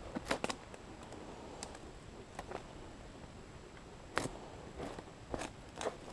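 Scattered sharp snaps and cracks of pitch-soaked fatwood being pried and pulled apart from an old stump, about eight separate snaps, the loudest about four seconds in.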